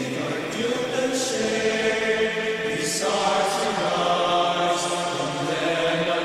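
A slow hymn sung by several voices in long held notes, with a few soft 's' sounds between the words.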